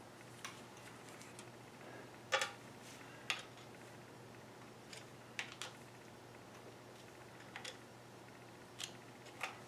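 A few faint, sharp clicks and light taps at irregular intervals from metal parts being handled on a milling machine under teardown, the loudest about two seconds in, over a low steady hum.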